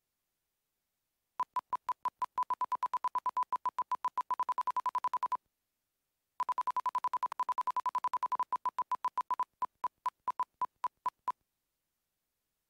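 Aircraft stall warning beeping rapidly, a single high tone about eight times a second, sounding as the airplane slows toward stall speed for landing. It comes in two bursts with a short break, and the second burst slows and stops near the end.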